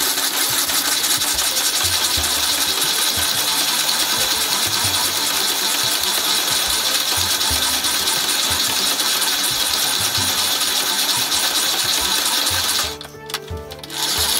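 Antique Silver hand-cranked drill press being cranked steadily as it bores, a continuous mechanical rattle of its gears and feed with a low pulse about once a second. It stops for about a second near the end, then starts again.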